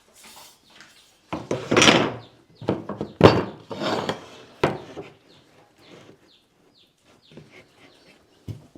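Knocks and clatter of wooden pieces and a square being set down and shifted on a workbench, a handful of hard strokes with the loudest about two and three seconds in.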